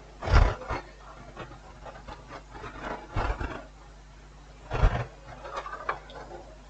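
Bench handling noise while tiny tactile switches are removed from a TV's control board: three soft knocks about half a second, three seconds and five seconds in, with light rubbing and small ticks of tools and parts between them.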